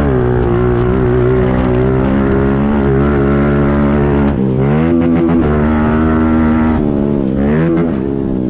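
Honda CRF125 pit bike's single-cylinder four-stroke engine running hard at high revs. The engine note dips and climbs back up about four and a half seconds in, and again near the end.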